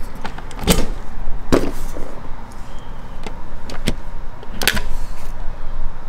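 A few sharp plastic clicks and knocks as a plug-in receptacle tester is handled and pulled out of a GFCI outlet, with the loudest about a second in, a second and a half in, and near the end.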